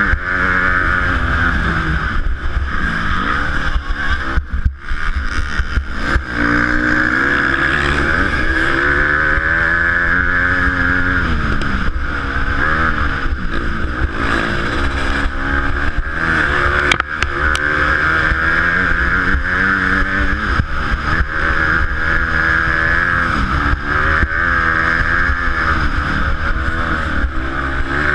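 Dirt bike engine revving up and down over and over as the rider opens and closes the throttle through the gears, with a brief drop in revs about four and a half seconds in. Heard from a helmet-mounted camera, with a steady hiss over it and scattered knocks from the bike jolting over the track.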